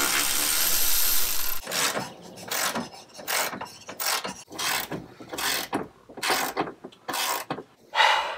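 Hand ratchet wrench working a rear suspension bolt loose, clicking in repeated strokes about every 0.7 seconds. A steady rasping noise fills the first second and a half before the strokes begin.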